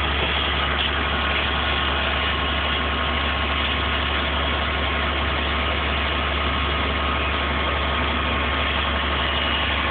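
Vehicle engine running steadily at an even speed: a constant low drone with a faint steady whine above it.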